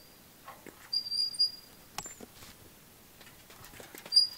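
Metal swing set squeaking as the swings go back and forth: a short, high, even-pitched squeak about a second in and another near the end, with a sharp click about two seconds in.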